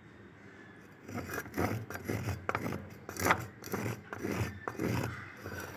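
Hands mixing flour in a bowl, rubbing and scraping the mix against the bowl's side in repeated strokes about two a second, starting about a second in.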